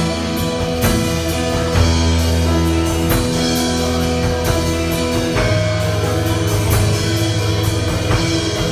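Church worship music played by a band: held guitar and keyboard chords over bass, with drum kit and cymbal hits at a steady beat of about two a second.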